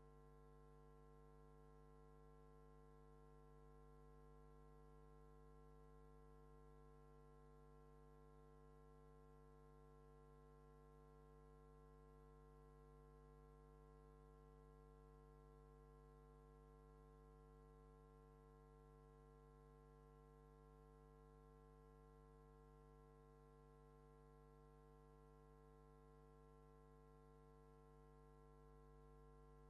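Near silence with only a faint, steady, unchanging hum.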